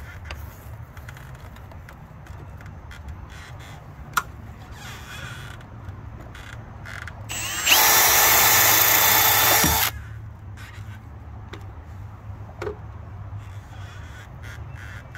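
Power drill running at a steady speed for about two seconds, starting about halfway through, as it drills into the rusted screw holding a bus marker-light bezel; it stops suddenly. A sharp click comes a few seconds before it.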